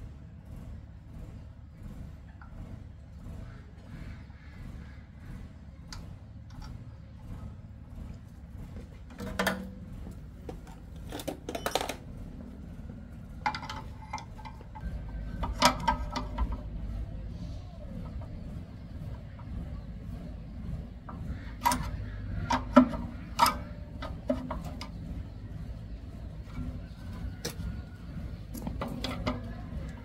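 Scattered metallic clicks and clinks of tools and parts being handled on a walk-behind tractor's single-cylinder engine, a few sharp knocks at a time, over a low steady rumble.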